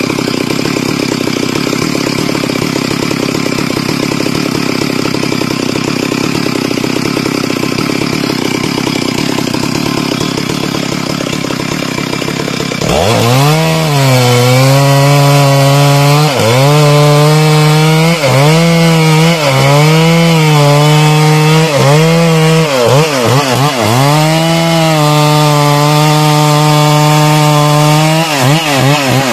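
Stihl MS 382 two-stroke chainsaw idling, then opened to full throttle about halfway through and cutting teak wood. The engine pitch sags repeatedly as the chain bites and recovers between bites, holding steady at high revs for a few seconds near the end.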